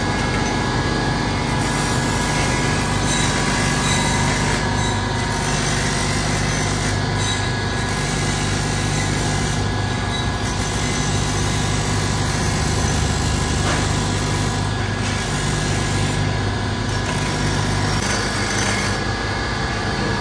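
Electric buffing machine running steadily as a motorcycle silencer pipe is held against its spinning cloth wheel for polishing: a constant motor hum with a steady rushing noise over it.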